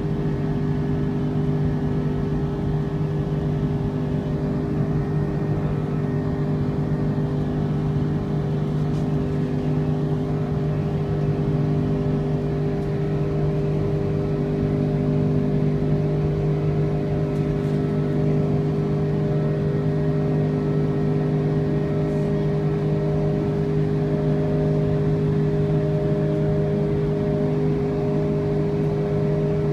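Steady drone of an Airbus A330's jet engines heard inside the passenger cabin during the climb after takeoff: an even rumble with several steady hums, two of them wavering in a slow, regular beat.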